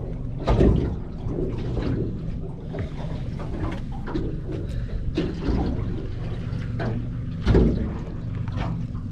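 Boat engine idling with a steady low hum, water lapping and small knocks on deck, and two dull thumps, one about half a second in and one near the end.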